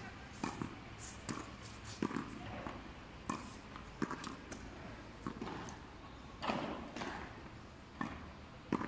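Tennis balls struck with a racket and rebounding off a frontón's front wall and the wet court floor, with two balls kept in play at once: a run of sharp, irregular knocks about once or twice a second.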